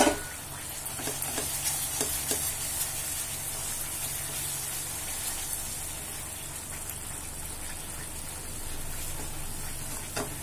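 Thick badam (almond) halwa sizzling and bubbling in ghee in a non-stick pan as a silicone spatula stirs and scrapes it round: the ghee is separating out, the sign the halwa is nearly done. A single knock sounds at the very start.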